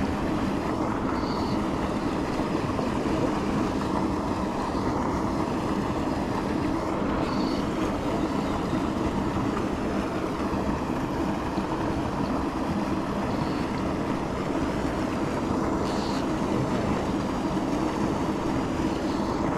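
Steady rush of flowing river water, an even noise that holds the same level throughout.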